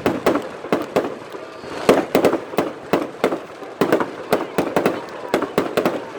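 Fireworks going off: a rapid, irregular string of sharp bangs and pops, several a second, with crackle between them.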